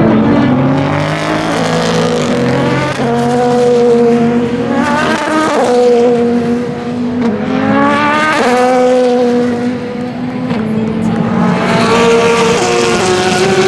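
Race car engines running hard as cars pass, the pitch climbing through the gears and dropping sharply at each upshift, about three times.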